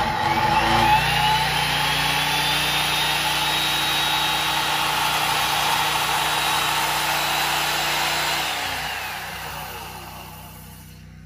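Corded worm-drive circular saw spinning up and cutting steadily through a pine beam. About eight seconds in, the trigger is let go and the motor winds down, falling in pitch and fading.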